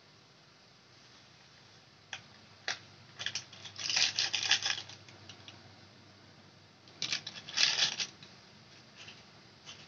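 Plastic-foil seasoning sachet crinkling and rustling in the hand as its powder is shaken out into a pot of soup. It comes in two bursts about three seconds apart.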